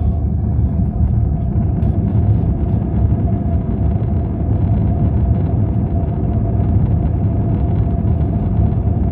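Airbus A320-200 heard from inside the rear passenger cabin during takeoff, engines at high thrust: a loud, steady roar with a deep rumble and a steady droning tone.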